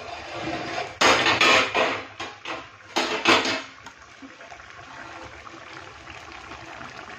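A stainless steel plate used as a lid clattering against the aluminium cooking pot as it is lifted off and set aside, in two loud bursts about one and three seconds in. After that, chicken curry bubbling steadily as it simmers in the open pot.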